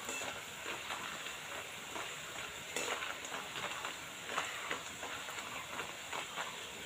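Nimki dough pieces deep-frying in hot oil in a kadai, the oil sizzling steadily. A perforated metal ladle stirs them, with scattered light scrapes and clicks against the pan.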